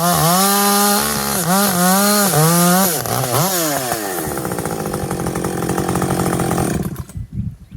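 Muffler-modded Husqvarna 560XP two-stroke chainsaw at full throttle bucking dry silver birch, its revs dipping briefly several times as it cuts, then dropping to idle and cutting off suddenly near the end.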